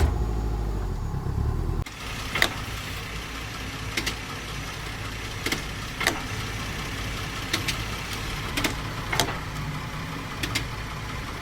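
Car engine running, with sharp knocks every second or two. The knocks are the kind of blow that damaged automatic-transmission mounts give. About two seconds in, the louder engine hum drops abruptly to a quieter steady running.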